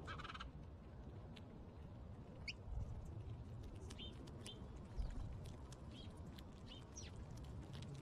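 Faint scattered chirps from small songbirds: short high notes every second or so, with a brief louder call right at the start, over a low steady rumble.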